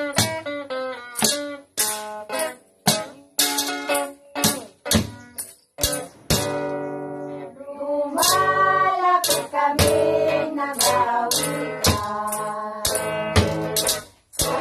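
Music played on a guitar and homemade percussion: plucked guitar notes with sharp beats on plastic-tub drums and a makeshift cymbal. About eight seconds in, a group of voices comes in singing a carol over them.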